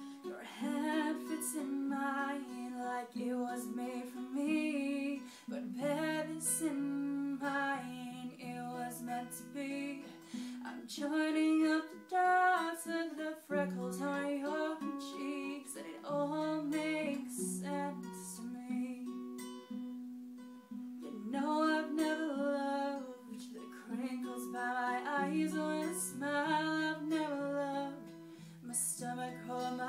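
A woman singing to her own acoustic guitar accompaniment, a slow, gentle pop ballad.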